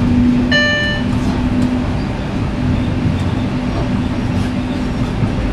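Running noise heard inside a Bombardier Flexity Outlook streetcar moving along its track: a steady rumble with an even hum. A short beep sounds about half a second in.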